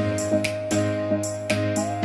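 Background music: a gentle instrumental track with a held melody over plucked chords and a light steady beat.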